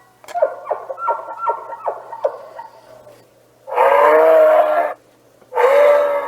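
Moose calling: a quick run of about seven short, falling grunts over the first two seconds or so, then two long, loud drawn-out moaning calls.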